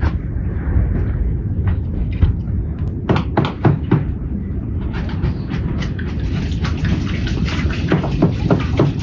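Water poured from a clay jug splashing over bell peppers in a metal basin, with the peppers knocking and squeaking as hands rub them clean; the pouring sets in about five seconds in, after a few scattered knocks. A steady low rumble runs underneath.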